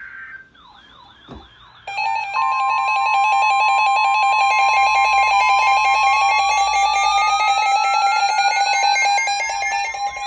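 Emergency Alert System alert tones. A warbling tone comes about half a second in. From about two seconds a loud, steady attention signal of several overlapping tones follows, and one of them starts gliding slowly upward about halfway through.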